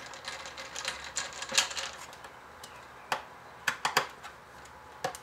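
T15 Torx screwdriver turning screws down into the metal PCM housing: an uneven scratching of the driver in the screw heads for the first couple of seconds, then a few sharp metal clicks as the bit is set onto the next screw.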